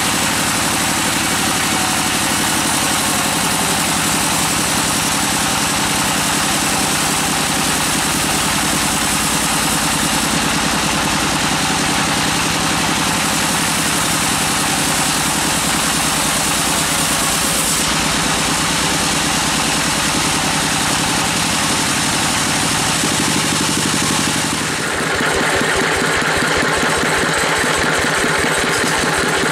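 A large band sawmill runs steadily as its blade cuts through a big log. About 25 seconds in the sound dips briefly, then turns into a rhythmic low pulsing as the saw runs on without a cut.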